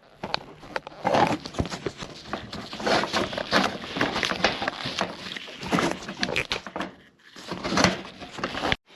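Irregular knocking and clattering, several knocks a second, with a short lull about seven seconds in.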